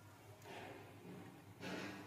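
Faint rustling of a paper cupcake liner as fingers grip its edge to peel it from a chilled tart, in two soft rustles, one about half a second in and a slightly louder one near the end.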